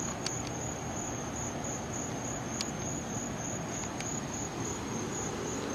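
Crickets chirping in a steady, high, pulsing trill, with a few faint clicks.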